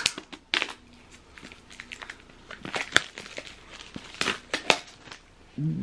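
Wrapping being torn and peeled off a small cardboard AirPods Pro box, with hands handling the box: irregular crinkling and sharp little clicks.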